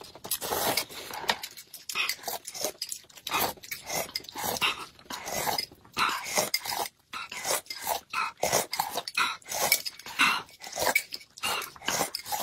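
Close, exaggerated slurping and sipping of food: a noodle slurp, then repeated quick slurps of thin corn porridge off spoons, in irregular short bursts.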